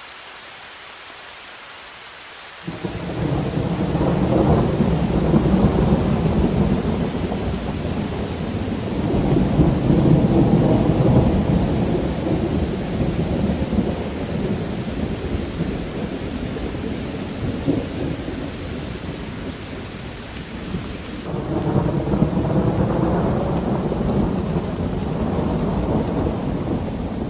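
Heavy rain with rolling thunder: a steady hiss of rain, with long low rumbles swelling in about three seconds in, again around ten seconds, and once more near the end.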